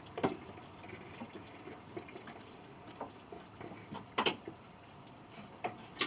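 Scattered light knocks and clicks of a replacement radiator being worked into a truck's engine bay by hand, roughly a second apart, the loudest a little past four seconds in.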